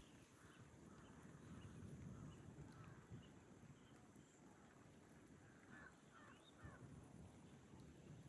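Near silence: faint outdoor ambience with a low rumble and a few faint bird calls, three short chirps close together about six seconds in.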